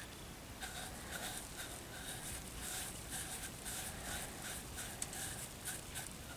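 A green scrub pad rubbing the edge of a freshly unmolded, unfired slip-cast clay figure in quick repeated scratchy strokes, about three a second: the raw greenware being smoothed and cleaned up.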